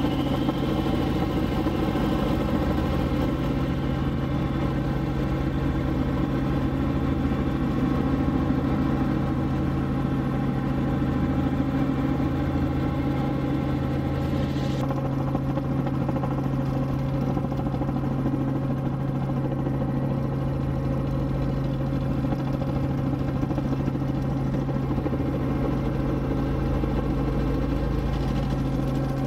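Helicopter engine and rotor running steadily, heard from inside the cabin: a constant drone with a strong low hum and many fixed tones. A higher hiss drops away abruptly about halfway through.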